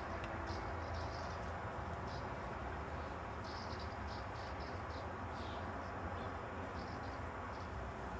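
Outdoor field ambience: a steady low rumble with irregular short bursts of high chirping.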